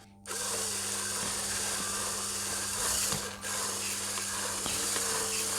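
Homemade crankshaft, connecting-rod and piston mock-up running with a steady mechanical rattle. Its piston has a deliberately exaggerated clearance in the cylinder, so it rocks from side to side: a model of piston slap.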